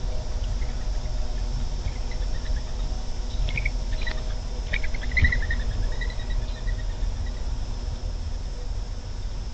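A few faint, irregular bird chirps in the middle, trailing off in a short falling trill, over a steady low outdoor rumble, with a single knock about five seconds in.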